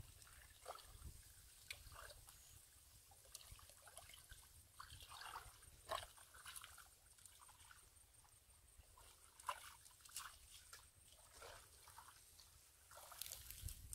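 Faint, scattered wet squelches and slaps of hands digging into soft, waterlogged mud.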